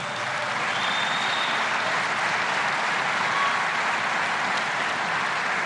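A large audience applauding steadily, a sustained ovation.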